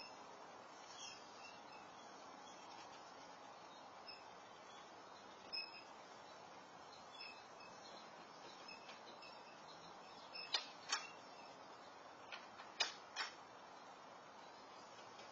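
Steady faint hiss of an outdoor security camera's microphone with scattered short bird chirps. A handful of louder, sharp chirps come about ten to thirteen seconds in.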